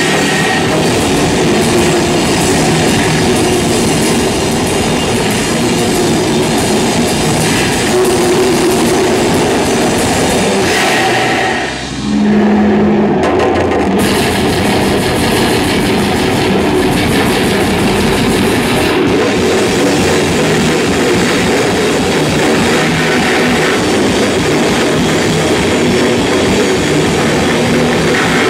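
Loud live heavy rock: distorted electric guitar and a drum kit playing together. The music drops briefly about twelve seconds in, then comes back in.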